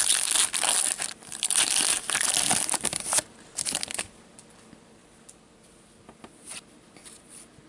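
A hockey card pack's wrapper being torn open and crinkled by gloved hands for about three seconds, with a couple more short rustles just after. Then the cards are handled quietly, with a few faint clicks.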